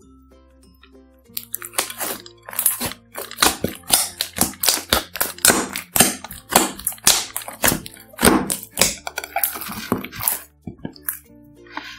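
Clear slime mixed with glitter and beads being squished and mixed: a quick, uneven run of loud wet pops, clicks and crackles that starts about a second in and stops near the end, over quiet background music.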